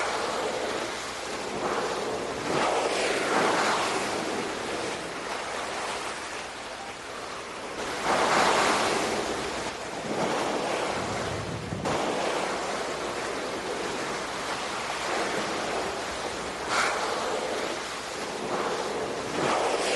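Ocean waves washing and breaking, swelling and ebbing every few seconds, the loudest swell about eight seconds in.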